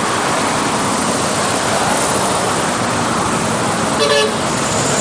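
Loud road traffic noise with a short horn toot about four seconds in.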